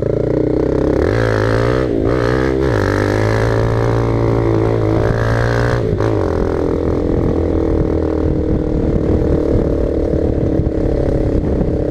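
Rap beat with deep held bass notes that step to new pitches a few times, over the rough running of a motorcycle engine at road speed.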